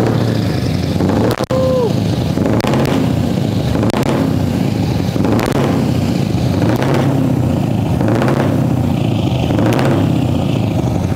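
Scania R520's V8 diesel running loudly through an open, straight-through exhaust pipe, with a regular pulse about every second and a half.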